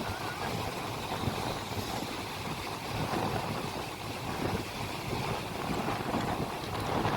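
Steady rumble of a boat under way at sea, with wind buffeting the microphone.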